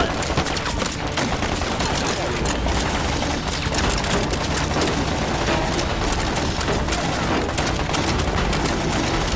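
Heavy, continuous gunfire from many guns at once, the shots overlapping rapidly with no let-up.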